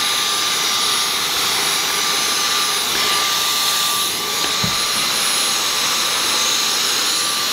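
Cordless stick vacuum running steadily, a constant rushing hiss with a high thin whine over it.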